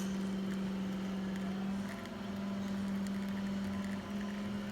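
Espresso machine's variable-speed pump running steadily while a shot is being pulled, a steady hum with slight changes in level about two and four seconds in.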